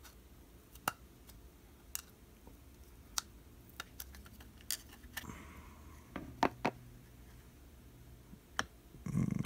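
Scattered light clicks and taps of small hard objects being handled on a workbench, about a dozen at irregular intervals, some in quick pairs.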